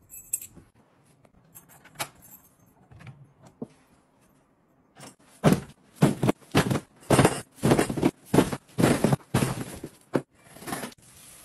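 Cardboard parcels dropping and tumbling onto a tiled floor, a rapid run of about a dozen loud thuds over some six seconds. It comes after a few seconds of faint clicks and rustling.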